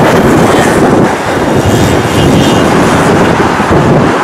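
Twin-engine jet airliner's engines running at high power as it rolls away down the runway, a loud steady noise, with wind buffeting the microphone.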